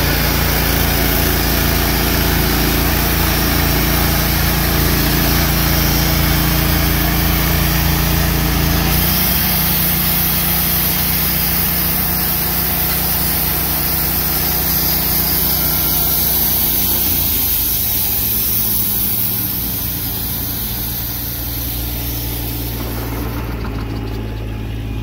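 Wood-Mizer LT15 GO portable band sawmill running under load, its gas engine driving the band blade as the saw head is pushed by hand through a cant. The engine note shifts about nine seconds in and again a little past halfway, and the sound gets somewhat quieter near the end.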